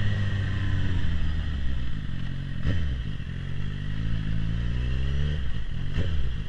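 2011 Suzuki GSX-R750's inline-four engine running through a full Akrapovic exhaust while being ridden. The engine note sinks at first, then climbs steadily as the bike accelerates, and drops sharply about five seconds in.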